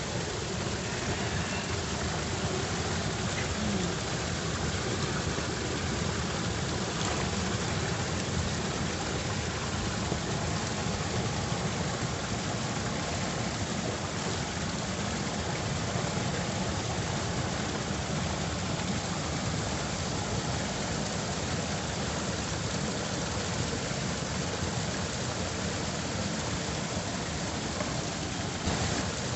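Steady rush of water flowing through a rice-field channel, an even hiss with no breaks.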